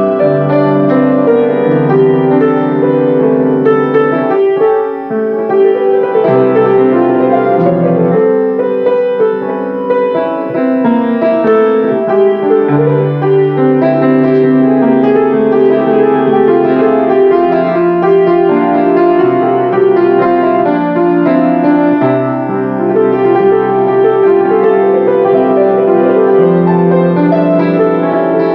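Grand piano playing a slow piece of sustained chords over low bass notes that change every few seconds.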